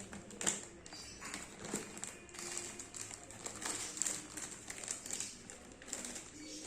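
Plastic packaging crinkling and rustling in irregular bursts as a parcel of trousers is unwrapped.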